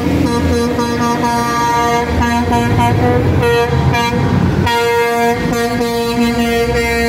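Semi-truck air horns sounding long held blasts as the tractors drive past, over the rumble of their diesel engines. The horn tones change about four and a half seconds in.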